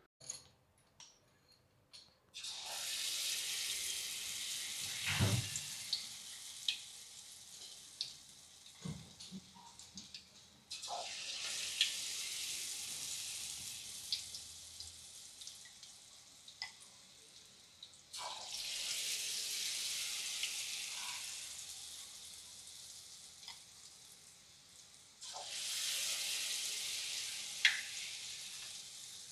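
Egg and flour batter dropped into hot oil in an aluminium kadai, sizzling four times: each sizzle starts suddenly as a portion goes in and fades over several seconds. A few short knocks come in between.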